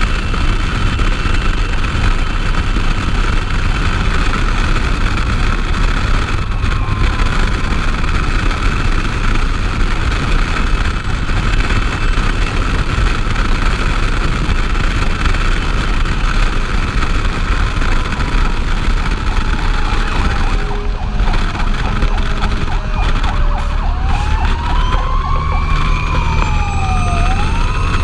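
Fire engine driving at road speed: heavy wind and road noise on the outside-mounted microphone over the engine running. In the last several seconds a siren winds slowly down in pitch, then sweeps up and down and up again.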